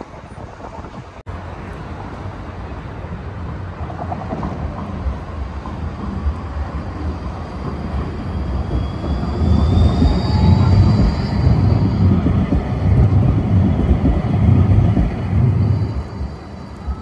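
Electric tram passing by: the rumble of wheels on rails builds up, is loudest from about ten to sixteen seconds in, then falls away, with a faint high whine above it. There is a short break about a second in.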